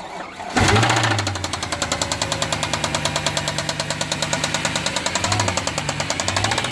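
Mercedes-AMG C63 engine running, with a loud rattling noise made of rapid, even ticks over the engine note. The sound jumps up loudly about half a second in, then settles.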